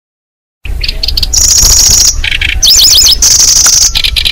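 Recorded song of the kecici belalang, a small bird, played as a trapping lure call. Just after a short silence it starts with thin high notes, then long high buzzy trills alternate with quick, repeated up-and-down whistled notes, over a low rumble.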